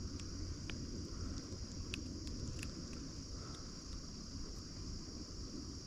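Steady high-pitched insect chorus, with a low rumble underneath and a few scattered small clicks.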